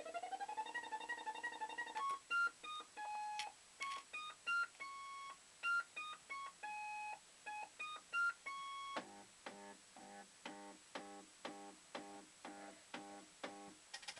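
Maygay Moon Bug fruit machine playing its electronic sound effects. First comes a rising glide, then a beeping tune of short notes, and from about nine seconds in a run of repeated pulsing notes about two a second.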